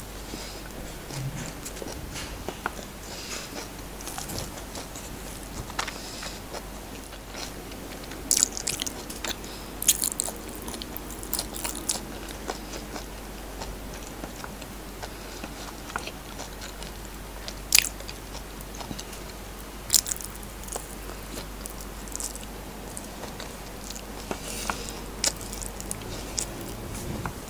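Close-miked chewing of fried rice eaten by hand, with wet mouth and lip smacks throughout. A few sharp smacks stand out, two about ten seconds in and two more near eighteen and twenty seconds.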